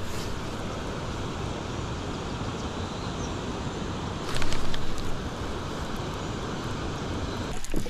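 Steady wind noise on the microphone. About four seconds in, a louder rush with a few sharp clicks comes as a baitcasting rod is cast and its reel is handled.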